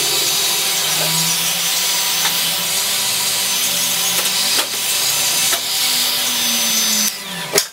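Electric heat gun blowing hot air into an aluminium scooter transmission cover to heat the bearing seats so the bearings can be removed: a steady hiss with a thin high whine, stopping about seven seconds in.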